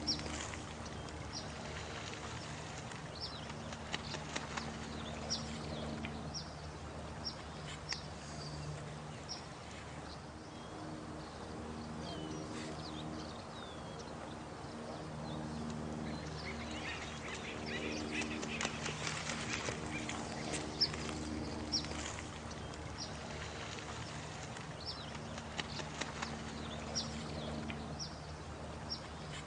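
Night nature soundscape: a steady rush of running water, with short, high chirps repeating about once a second and low, sustained animal calls coming and going underneath.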